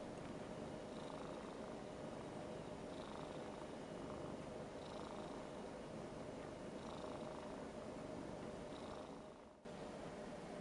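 Ragdoll cat purring steadily as it is stroked, the purr swelling about every two seconds with each breath. The sound fades and drops out briefly near the end, then the purring resumes.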